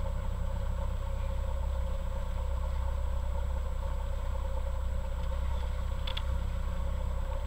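A motorboat's engine running steadily at low trolling speed, an even hum with a low rumble. A brief faint click comes about six seconds in.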